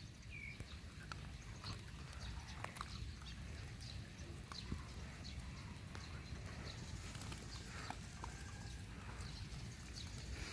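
Dogs eating dry kibble from a hand: scattered small crunches, clicks and licks over a low steady rumble.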